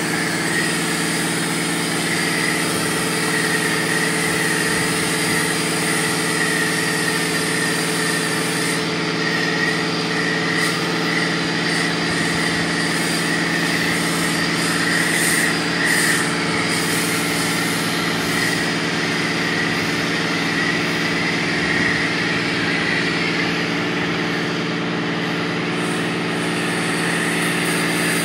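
A steady motor hum at an even pitch, with a hiss over it.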